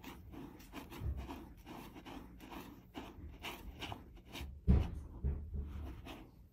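Cat scratching and digging in granular litter in a plastic litter box: a run of short raking scrapes, with a few dull thumps, the loudest about three-quarters of the way through.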